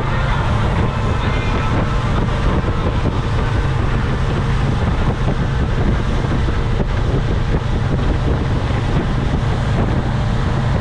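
Motorboat running steadily underway, with wind buffeting the microphone.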